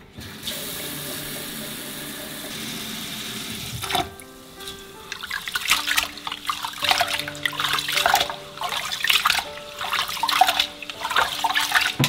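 Kitchen tap running steadily for about four seconds, then hands washing rice in a rice cooker's inner pot, the water swishing and splashing unevenly.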